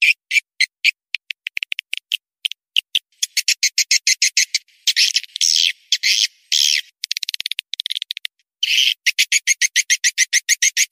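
Swiftlet call recording, a lure sound played to draw swiftlets into a swiftlet house: quick runs of short, high chirps. A few longer, buzzing twitters come in the middle and again near the end.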